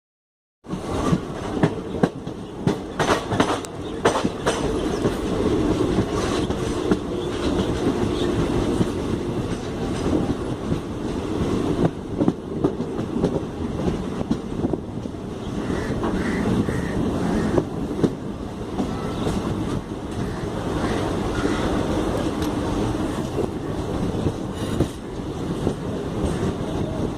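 Express train running through a station at speed: a loud, steady rush of passing coaches with wheels clattering over the rail joints, sharpest in a run of clicks in the first few seconds.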